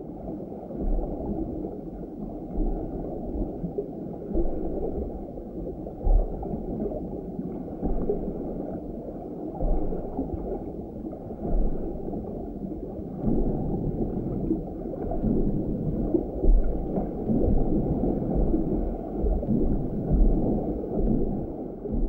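Muffled underwater water noise heard through a GoPro camera's waterproof housing hanging on a fishing line, a dull rumble and sloshing with irregular low knocks.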